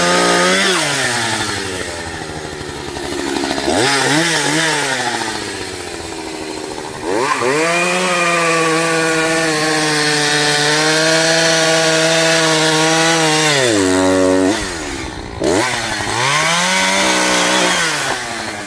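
Echo CS-590 Timberwolf two-stroke chainsaw cutting through a big tree at full throttle. The engine note holds high through each cut, drops back between cuts, and revs up again several times.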